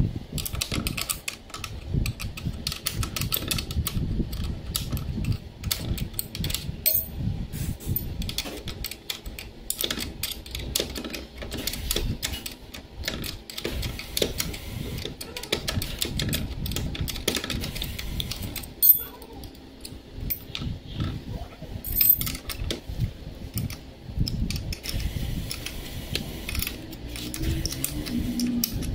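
Open-end spanner clinking and ticking against the bolts of a motorcycle stand as they are worked, a dense run of small metallic clicks and taps, with a couple of louder knocks about two-thirds of the way in.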